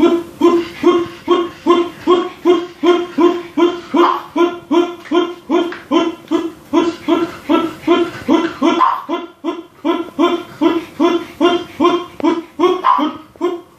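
A short, pitched, voice-like call repeated steadily about three times a second.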